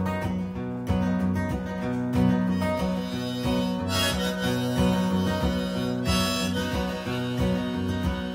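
Harmonica played through a vocal microphone over an acoustic guitar.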